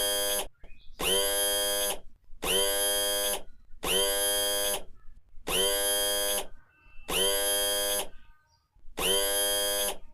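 Electronic buzzing sound effect of a sci-fi heads-up display: a harsh, steady-pitched buzz, each lasting about a second, repeated about seven times at roughly one-and-a-half-second intervals.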